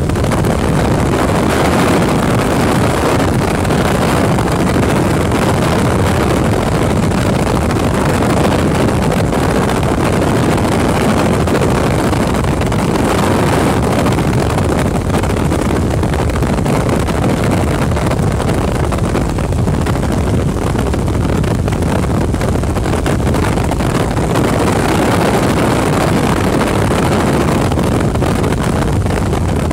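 Helicopter engine and rotors running steadily in flight, heard from inside the cabin as a loud, even drone with wind noise on the microphone.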